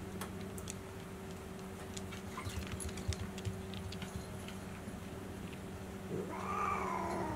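Domestic cat meowing once near the end: a drawn-out call of about a second that rises and then falls. Before it, a few soft taps and clicks over a low steady hum.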